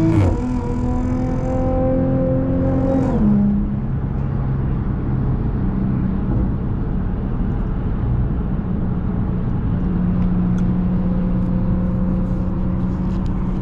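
Audi S4's supercharged V6 heard through an AWE Touring exhaust from inside the car: the engine note drops sharply at the start as it shifts up, pulls with slowly rising pitch for about three seconds, then falls away as the driver eases off and settles into a steady cruising drone.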